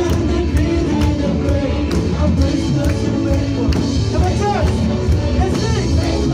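Live worship band music led by a close-miked drum kit: a steady beat of drum and cymbal hits, with a singing voice coming in over it from about the middle.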